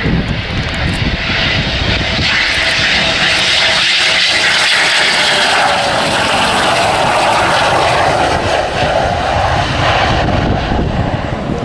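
Eurofighter Typhoon's twin EJ200 jet engines running loud and steady as the fighter flies a low, gear-down approach to land. A whining tone sits over the jet noise, and the noise swells in the middle as the jet passes close.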